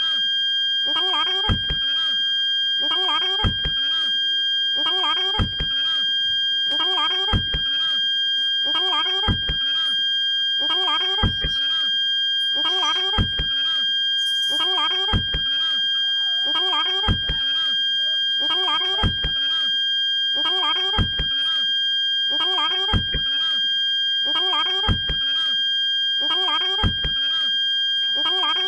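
Toyota Calya/Sigra parking-sensor buzzer sounding one unbroken steady tone, the warning such sensors give when an obstacle is very close. About every two seconds a short low thump with a brief warble repeats over the tone.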